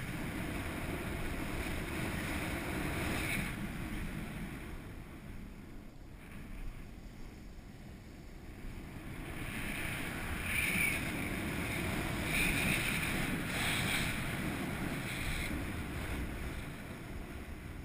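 Steady rushing hiss of a rider sliding fast through deep powder snow, mixed with wind on the microphone. It eases off for a few seconds around the middle, then swells again.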